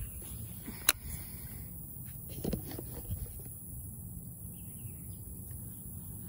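Quiet outdoor background with a single sharp click about a second in and a few softer clicks or taps a little later.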